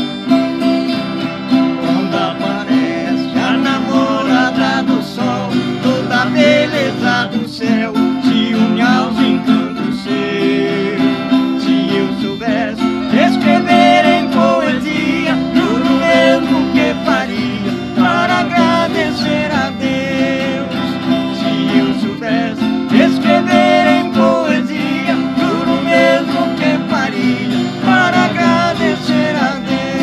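Two acoustic guitars strummed and picked while two men sing a country duet.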